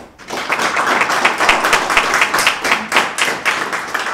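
Audience applauding at the end of a lecture, starting about half a second in and going on as dense, steady clapping.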